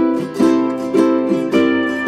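Background music: a light plucked-string tune, with a new note or chord about every half second.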